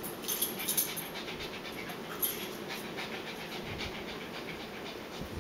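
Dog panting rapidly and steadily, out of breath during rough play with another dog.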